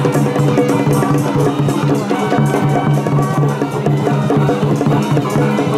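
Loud music with a dense, regular drum and percussion beat over sustained pitched instruments.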